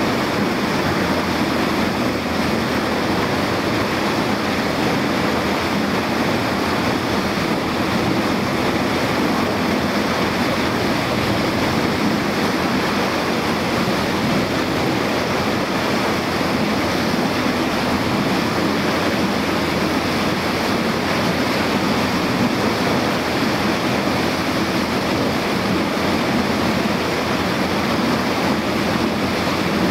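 Small boat under way: a steady, loud rush of wind on the microphone and water along the hull, with the boat's motor running underneath.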